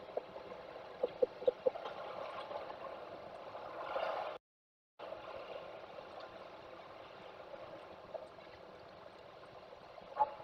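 Steady rushing background noise, with a few short faint knocks or peeps between one and two seconds in. The sound cuts out completely for about half a second just after four seconds in.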